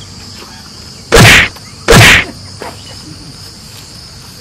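Two loud slaps, about a second apart, one a little over a second in and the next about two seconds in, over steady high chirring of crickets.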